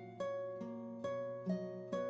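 Background music: a light melody of plucked-string notes, one about every half second.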